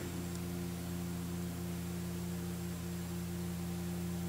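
Stepper motors of a Stainless OX CNC router driving an axis slowly during homing, giving a steady low hum of a few tones.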